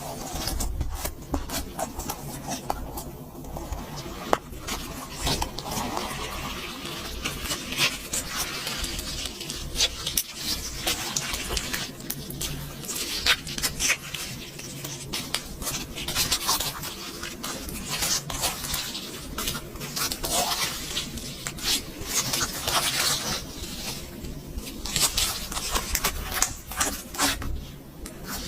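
Slime being squished and kneaded by hand, with many quick wet clicks, pops and crackles at an uneven pace.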